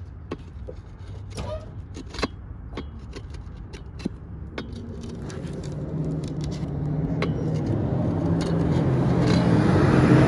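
A motor vehicle drawing closer, its engine getting steadily louder toward the end, after a few seconds of scattered short clicks.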